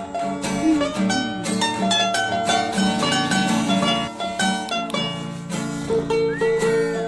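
Background music led by quick plucked strings, mandolin-like, with a steady beat.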